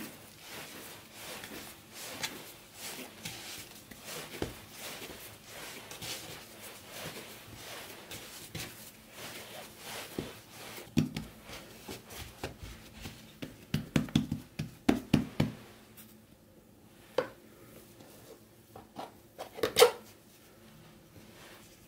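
Hands kneading and shaping a soft cottage cheese dough on a countertop: rubbing and pressing, then a quick run of soft pats and thumps past the middle. Near the end come a couple of sharp knocks as a knife cuts through the dough onto the counter.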